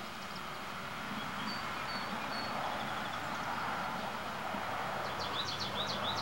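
Outdoor garden ambience: a steady background hiss with small birds chirping, a few short whistled notes about two seconds in and a quicker run of rising chirps near the end.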